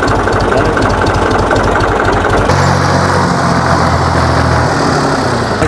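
Farm tractor engine running with a fast, even beat. About two and a half seconds in the sound changes abruptly to a steadier, deeper hum as the tractor drives off.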